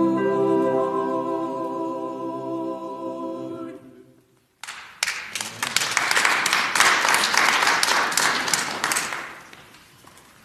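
Small church choir holding and releasing the final chord of an anthem. After a short pause, the congregation applauds for about five seconds, and the clapping then dies away.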